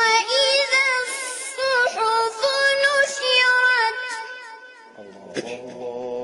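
A boy's high voice reciting the Quran in the melodic, ornamented tajwid style: one long phrase of held notes with wavering pitch turns, ending about five seconds in. Near the end a lower man's voice holds a steady note briefly.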